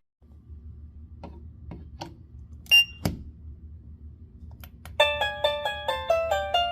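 Low steady hum with a few faint taps, a short high electronic beep, then a sharp click. About five seconds in, a quick melody of plucked, harp-like notes begins.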